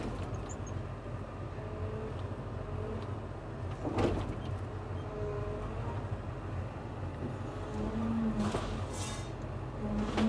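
Heavy demolition machine's engine running steadily, with short whines and a sharp crack about four seconds in, then a brief rush of noise near the end.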